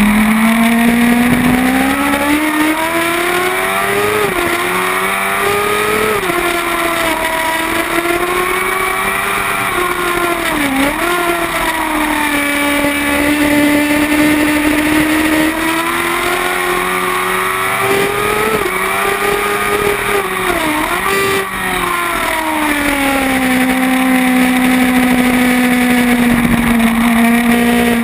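Kawasaki ZX-10R inline-four superbike engine at racing speed, heard from an onboard camera. Its pitch climbs and drops repeatedly through the gears and corners, with several quick dips at gearshifts, and holds steadier for a few seconds in the middle and near the end.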